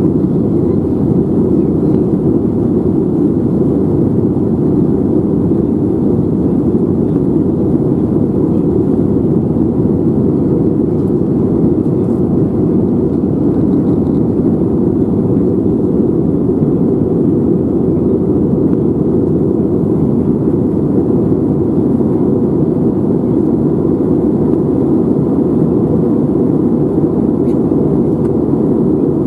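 Steady, unbroken cabin noise of an airliner in flight: a loud, even low rumble and rush of engine and airflow.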